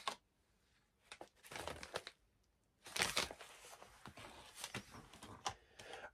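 Faint rustling and light plastic clicks as a Blu-ray case is handled and turned over. The loudest bursts come about a second and a half in and again about three seconds in.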